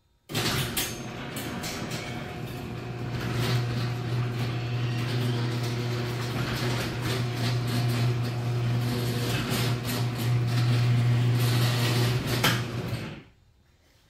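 Electric garage door opener raising a single-car sectional garage door: a steady motor hum with rattling and clicking as the door rolls up its tracks. It starts suddenly and cuts off about thirteen seconds in when the door is fully open.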